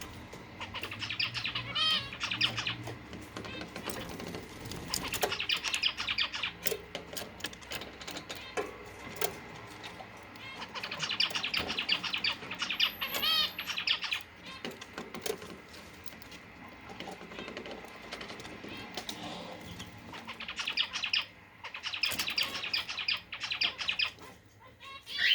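Cage finches twittering in four bursts of rapid high chirps, each a few seconds long, with small clicks in between.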